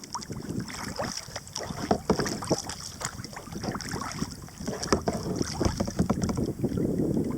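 Kayak paddle strokes splashing and dripping in the water, in an irregular stream of splashes, with wind buffeting the microphone.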